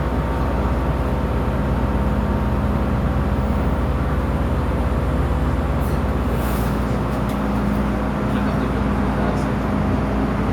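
MTR Tsuen Wan Line M-train running, heard from inside the car: a steady low rumble of the train in motion with a steady motor hum. A brief high hiss about six and a half seconds in.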